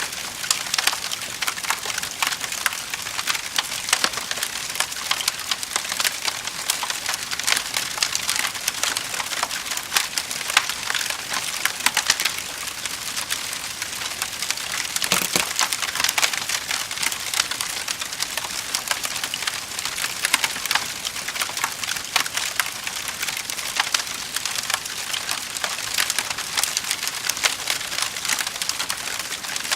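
Wood fire burning in a fireplace, crackling and popping steadily over a soft hiss, with one louder pop about halfway through.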